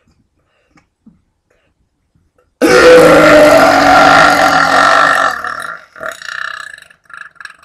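A woman's long, loud, deliberate burp, lasting about two and a half seconds and starting suddenly about two and a half seconds in. It comes from air she swallowed on purpose to fill her stomach. A few shorter, fainter sounds trail after it near the end.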